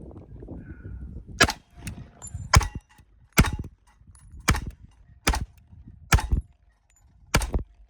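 Unsuppressed HK Mark 23 .45 ACP pistol firing seven shots, each a sharp loud crack, spaced roughly a second apart.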